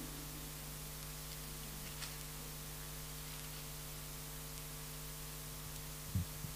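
Steady electrical mains hum and hiss from a microphone and sound system, with a faint tick about two seconds in and a brief low thump near the end.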